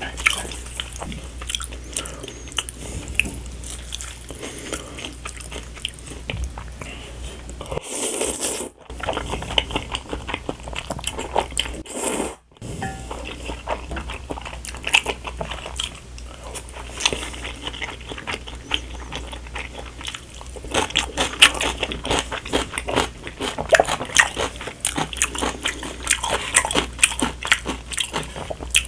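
Close-miked eating of spicy Buldak Gonghwachun stir-fried instant noodles: a dense run of wet chewing clicks and crisp crunchy bites, with a low steady hum underneath. The sound cuts out briefly twice, about a third of the way in.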